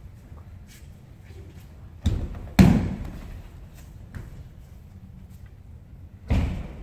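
Thuds of a body hitting tatami mats as an aikido partner is thrown and takes breakfalls: a double thud about two seconds in, the second one loudest and echoing in the hall, and another thud about six seconds in.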